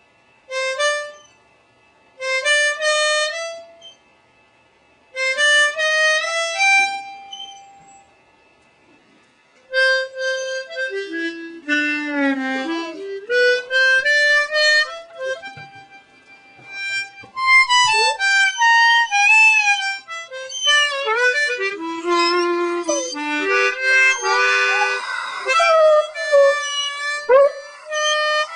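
Harmonica played in short phrases with pauses between them, then almost continuously from about ten seconds in, with a dog howling along, its voice gliding up and down against the notes.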